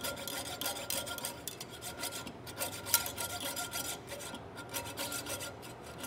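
Jeweler's saw cutting into a metal rifle-barrel underlug, its fine blade rasping in many quick, short strokes as the pin hole is elongated into a slot.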